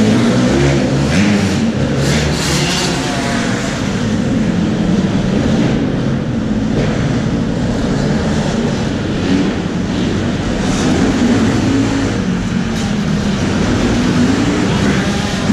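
Motocross bike engine running steadily close by, its pitch wavering up and down, with other dirt bikes running on the track.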